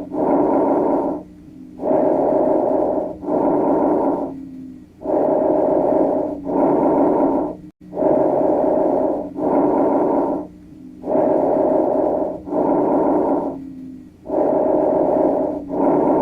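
Recorded lung breath sounds as heard through a stethoscope: a run of breaths, each breath in and out about equally long and loud, about one breath every three seconds, over a faint steady low hum.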